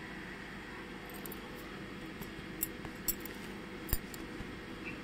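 Steady low background hum with a few short, faint clicks, the loudest about four seconds in.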